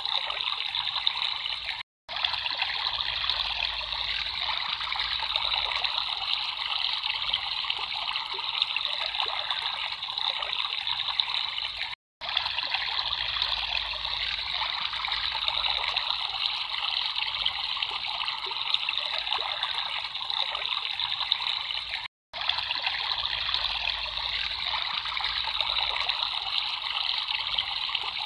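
Water trickling and babbling steadily, broken by three brief cuts to silence about ten seconds apart.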